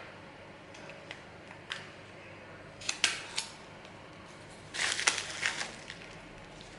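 Handling of items and packaging: short rustling and clicking noises in two brief clusters, about three seconds in and again about five seconds in.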